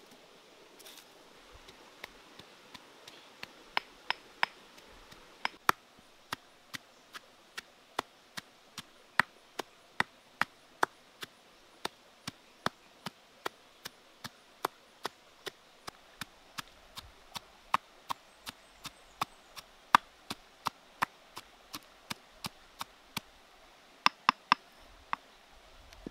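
Pestle pounding red chillies in a stone mortar: steady sharp knocks, about two and a half a second, with a quick run of three near the end.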